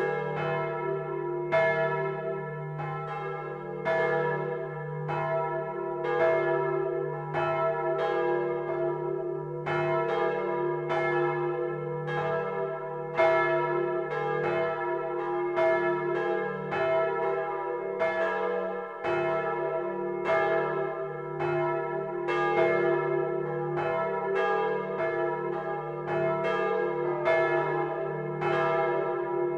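Full peal of the Domtoren's swinging church bells rung all together by hand, heard close up inside the bell chamber. Clapper strikes from several bells follow one another out of step, one to two a second, over a steady deep hum from the largest bells that never dies away.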